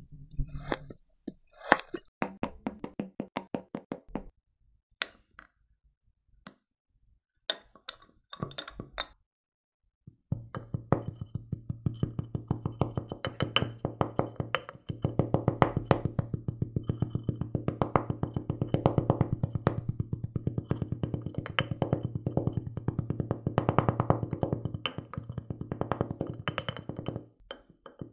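Kinetic sand being sliced with a knife: crisp clicks in short runs. From about ten seconds in, a fast, steady run of knocks over a low hum, as a wooden dowel tamps coloured sand into a drinking glass.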